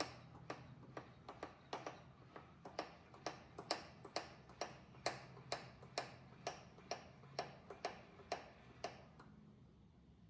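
Milling machine table being traversed, a steady low hum with a sharp click about twice a second. Both stop about nine seconds in. The vise's fixed jaw is being run along a drill shank held in the spindle to check the vise's alignment.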